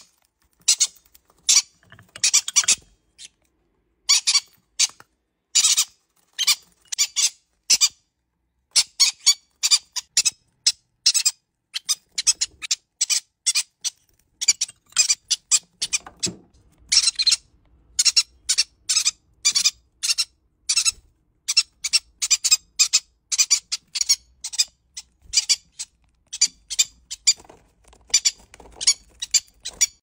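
Green-cheeked conures calling in short, high-pitched squeaky chirps and squawks, many in quick runs with brief pauses between them.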